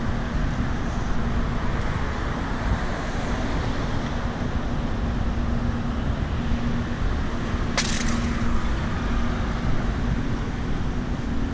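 Steady city street noise, a low rumble and hiss, with a faint steady hum; one sharp click about eight seconds in.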